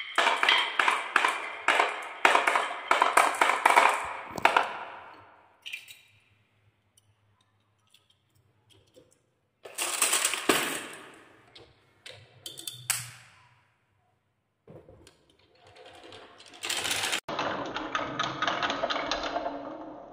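Glass marbles clattering and rolling down wooden marble-run tracks, a dense run of clicks that dies away within the first five seconds. About ten seconds in, a toy car rattles briefly along a wooden slat track, with a few knocks soon after; near the end marbles roll round a wooden spiral track in a building, steady rattle.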